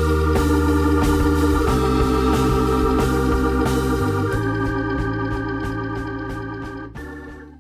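Background music with organ-like sustained chords and a steady beat, fading out near the end.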